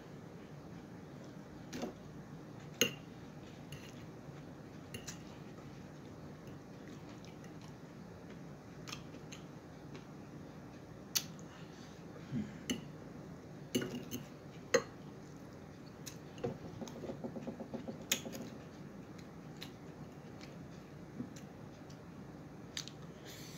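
Eating utensil clicking and scraping against a plate now and then, about a dozen sharp clicks spread out, with a quick run of small clicks about two-thirds of the way through, over a steady low room hum.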